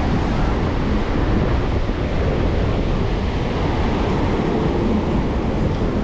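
Wind buffeting the microphone over the steady wash of breaking surf.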